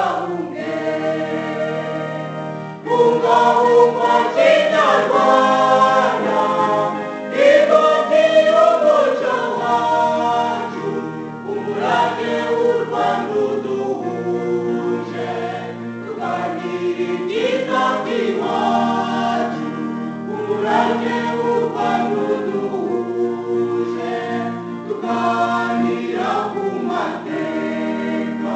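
A Kinyarwanda song: several voices singing a melody over sustained instrumental accompaniment.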